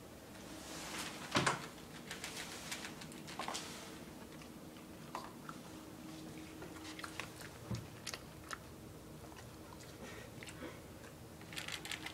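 Dog crunching food from a bowl: irregular crunches and clicks of chewing. A loud knock comes about a second and a half in, a duller thump near eight seconds, and a quick run of crunches near the end.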